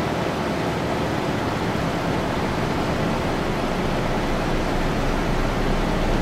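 Loud, steady rushing hiss like static, spread evenly from deep to high pitches and cut in and out abruptly: an edited-in noise effect in place of the background music.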